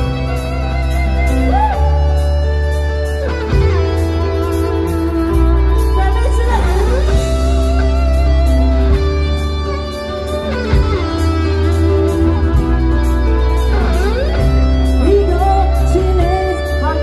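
Live rock band playing, with drum kit, bass guitar and electric guitars; an electric guitar lead with bends and vibrato runs over it in an instrumental passage.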